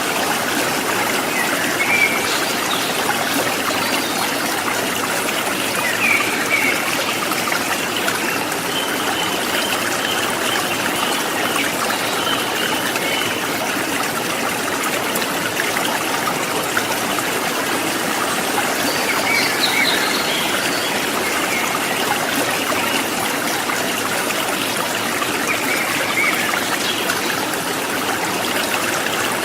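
River water flowing and splashing over rocks, a steady, even rush.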